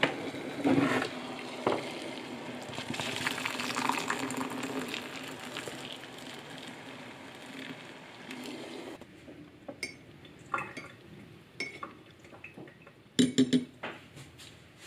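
Hot water poured from an electric kettle into a ceramic mug over a tea bag, a steady splashing for about nine seconds with a few clinks in it. Then scattered clinks and knocks, the loudest a quick cluster near the end.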